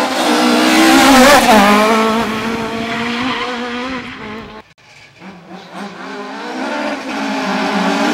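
Two Ford Escort Mk2 rally cars going through at speed one after the other. The first car's engine gets loud about a second in, drops in pitch as it passes and fades away up the road. After a brief break, the second car's engine grows steadily louder as it approaches.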